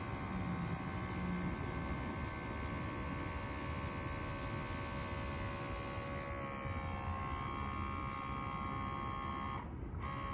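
Koshin Garden Master GT-10V electric sprayer running, its motor-driven pump giving a steady buzzing hum. About six seconds in, the higher hiss on top fades and the pitch of the hum shifts slightly.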